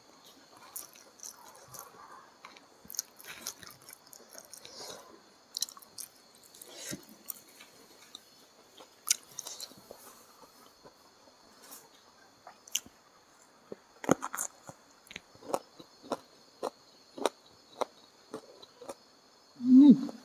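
Close-up chewing and wet mouth clicks of someone eating rice with chicken gizzard and liver in green chilli sambal. Near the end comes one short, loud voiced hum.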